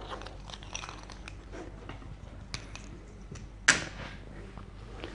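Cardboard board-game components being handled: light clicks, taps and rustles of thick punched card, with one sharper tap or knock a little over halfway through.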